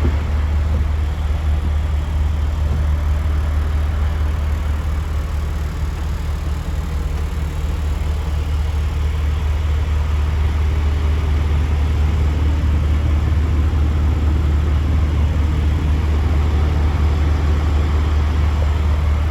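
DAF CF85's Paccar MX 460 hp turbo diesel straight-six idling steadily, with a deep, even hum.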